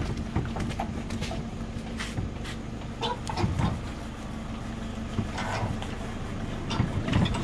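Vehicle engine idling with a steady low hum, with scattered light clicks and knocks over it.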